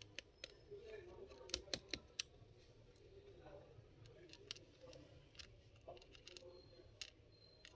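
Faint, scattered clicks and ticks of a screwdriver working small screws into a laptop's underside, with a cluster of sharper clicks about a second and a half to two seconds in.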